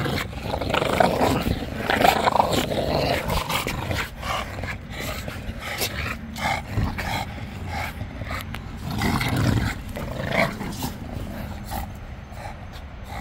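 Bulldogs growling hard during a game of tug of war, loudest in the first three seconds and again around nine seconds in, with scattered sharp clicks through it.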